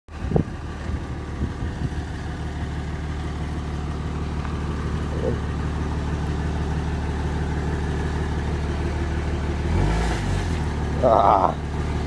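Pickup truck engine running steadily at low revs. A brief higher-pitched sound comes in near the end.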